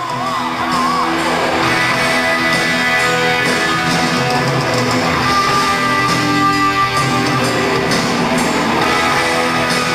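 Hard rock band playing live: distorted electric guitars and drums at full volume, with a wavering bent guitar note near the start.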